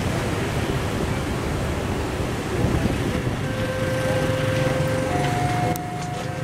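Small diesel shunting tractor running with a steady low rumble as it slowly tows a cold steam locomotive. Thin steady squeals come in about halfway through and change pitch, and there are a few sharp clicks near the end.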